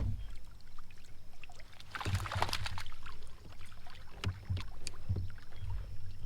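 Scattered knocks and clattering with dull thumps on a plastic pedal fishing kayak, with a cluster of them about two seconds in and a few single knocks later, as a hooked flounder is brought alongside.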